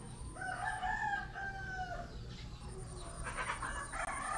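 A rooster crowing: one long, drawn-out crow starting about half a second in, with a second call beginning near the end.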